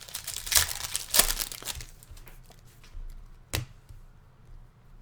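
Foil trading-card pack wrapper crinkling and tearing as it is handled and opened, dense for about two seconds, then a single sharp click about three and a half seconds in before quieter rustling.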